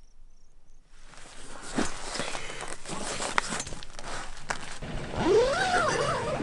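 Close handling noise as a boot is laced by hand: the lace rasps and scrapes through the metal eyelets and hooks, with a few sharp clicks. Near the end, a squeaky pitched rasp rises and falls several times as a lace is pulled tight.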